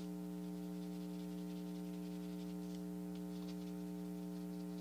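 Faint scratching strokes of a black colored pencil shading on brown construction paper, over a steady electrical hum.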